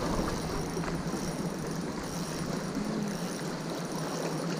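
Steady outdoor background noise with no distinct event.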